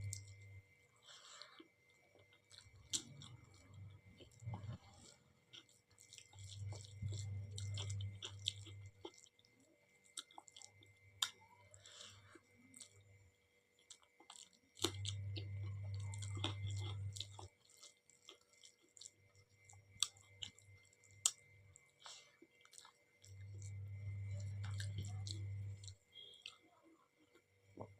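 Close-up mouth sounds of a person eating dal and rice: chewing, with small wet clicks and smacks scattered throughout. A low hum comes and goes in stretches of a couple of seconds.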